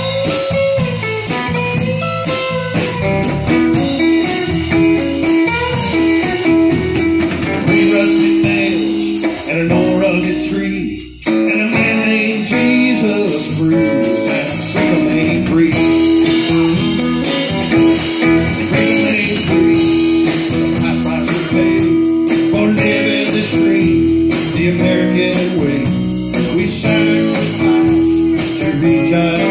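Live band playing an instrumental break: electric guitar over bass guitar and drum kit. The music dips briefly about eleven seconds in, then comes straight back in.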